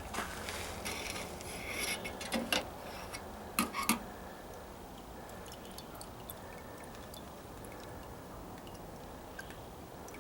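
Light clicks, taps and scraping of small hard objects being handled for about four seconds, then only a steady faint background hum with an occasional tiny tick.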